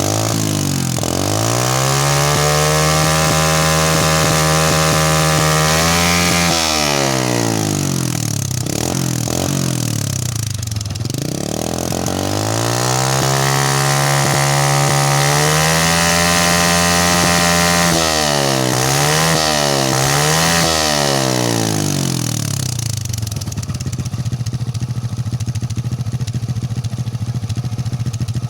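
Honda Supra X 125's single-cylinder four-stroke engine running through a bare pipe exhaust. It is revved up and held high for a few seconds, then drops back. It is revved and held again, blipped three times, and left idling.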